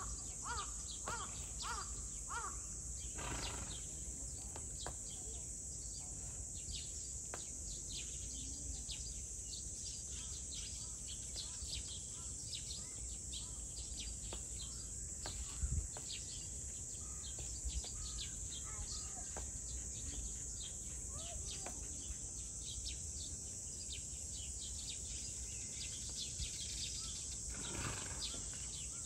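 Outdoor summer ambience: insects keep up a steady high drone while birds give many short chirps, with a run of repeated calls in the first few seconds. A low rumble of wind lies underneath, and two brief thumps come a little past the middle.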